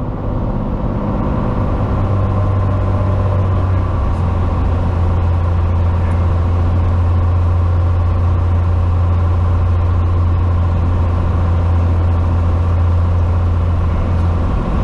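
Cessna 182T's Lycoming IO-540 six-cylinder engine and propeller droning steadily in flight, heard inside the cabin as a strong low hum.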